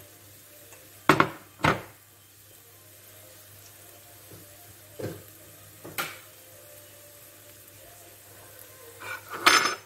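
Kitchen dishes and utensils being handled: two sharp knocks close together about a second in, two lighter ones a few seconds later, and a short clatter near the end, over a faint steady hum.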